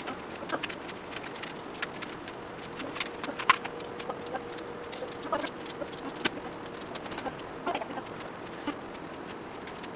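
Rapid, irregular plastic clicking and clacking of puzzle cubes being turned by hand. A faint steady tone runs through the middle.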